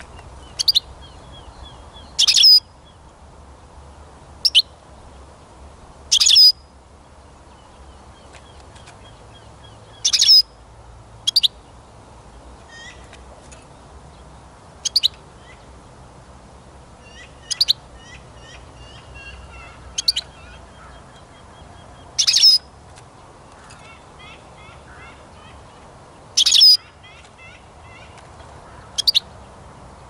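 European goldfinch calling: about a dozen loud, sharp, very short high calls spaced a few seconds apart, with softer quick twittering in between.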